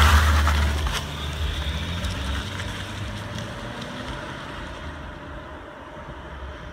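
A Kia Optima sedan pulling away and driving off down the street, its engine and tyre noise fading steadily into the distance.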